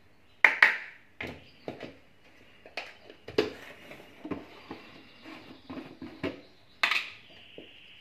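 Spoon clinking and scraping against a bowl while canary egg food is stirred and more dry mix is added, in irregular knocks and clicks, the loudest about half a second in and again near seven seconds.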